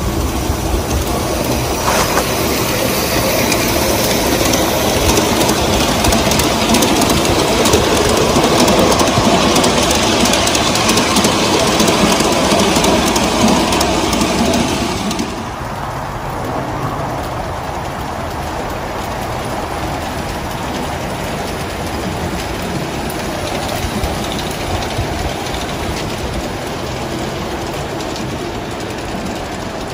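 G-scale model train rolling along a garden track, its locomotive sound effects switched off: a steady rumble of wheels on rail and the drive motors. About halfway through the sound suddenly drops to a quieter, duller rumble.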